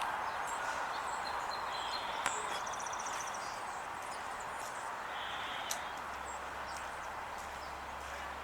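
Outdoor ambience: a steady background hiss with a few brief, high songbird chirps and a short quick trill about two to three seconds in.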